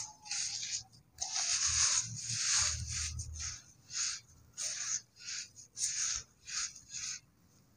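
A soft cement bowl being crumbled: a series of gritty crunching scrapes, about ten in all, the longer ones in the first few seconds with some dull thuds under them, then shorter crunches every half second or so.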